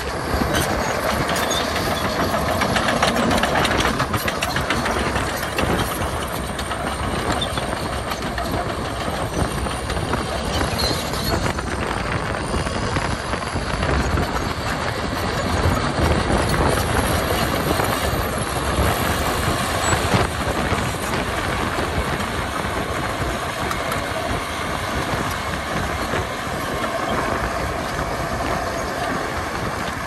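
Crawler bulldozer's diesel engine working under load as the machine pushes dirt with its blade, with the steel tracks clattering.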